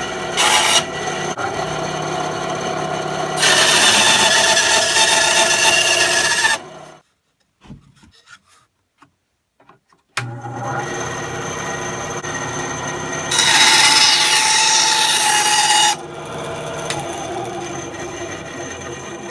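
Ryobi 9-inch benchtop band saw with its 2.5 amp induction motor running steadily while the blade cuts through a wooden board, twice. Each cut is a louder stretch of about three seconds. Between the cuts the sound drops to near silence for about three seconds before the saw starts up again abruptly.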